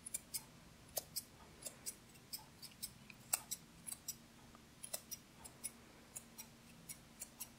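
Curved grooming scissors snipping the fur around a Golden Retriever's paw: a run of light, quick snips at an uneven pace, about three a second.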